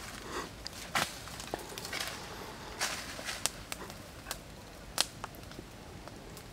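Wood campfire crackling with sharp snaps and pops, over rustling and crunching of dry leaf litter underfoot. The sharpest snap comes about five seconds in.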